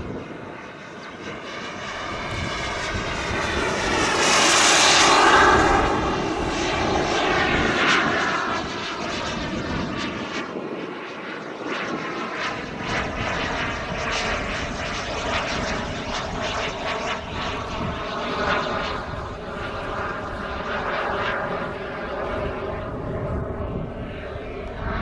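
Jet engine of a radio-controlled F-4 Phantom model flying overhead: a steady whine with hiss. It swells to its loudest about five seconds in, then carries on more evenly as the jet flies off.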